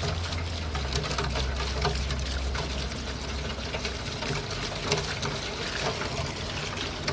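Heavy rain pouring down: a dense, steady hiss flecked with many small patters of drops. A low hum underneath stops about four seconds in.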